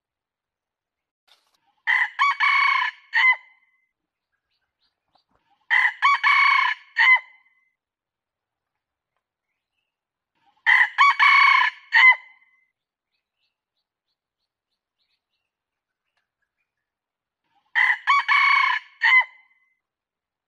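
Red junglefowl rooster crowing four times, each crow a short broken run of notes lasting about a second and a half, with long silent gaps between. It is a lure recording of the Kalimantan red junglefowl's crow, used to call wild birds in.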